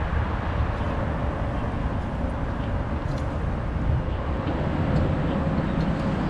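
Steady low outdoor rumble and noise, with a few faint clicks about halfway through as the pellet grill's lid is lifted open.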